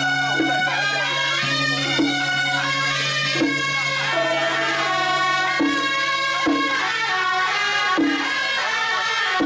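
Traditional Taiwanese temple ritual music: nasal reed horns of the suona type play a melody over a held low drone, with a sharp percussion strike every second or so.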